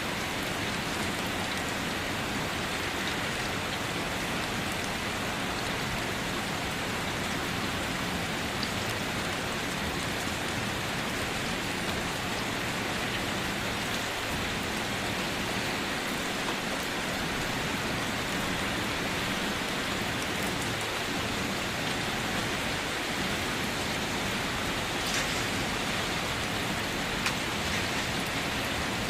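Steady rain falling on a hard surface, an even hiss with scattered drop ticks.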